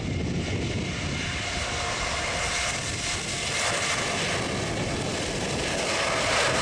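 Boeing 787-9's twin turbofan engines at takeoff power as the jet begins its takeoff roll: a broad rush with a steady whine coming in over it, growing louder.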